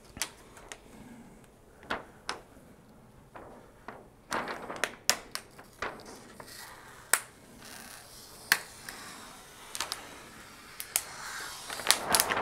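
Clear protective plastic film being peeled off a large TV screen: scattered sharp crackles and snaps of the plastic, with short stretches of rustling.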